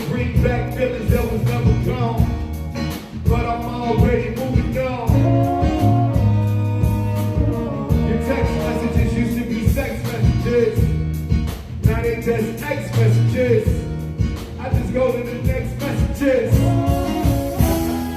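Live band playing a song: steady drum beat, bass and guitar, with a singer's voice over it.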